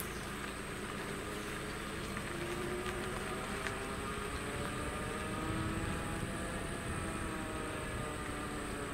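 Car engine running, heard from inside the cabin: a steady hum whose pitch rises a little a few seconds in and then holds.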